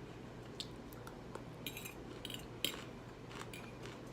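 Fork clinking against a plate while eating, several light separate clicks with the loudest about two and a half seconds in.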